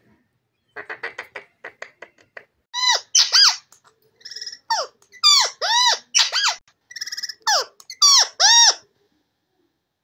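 Male rose-ringed parakeet (Indian ringneck) vocalizing. About a second in it gives a quick run of clicking chatter, then a string of about ten short, loud calls that rise and fall in pitch.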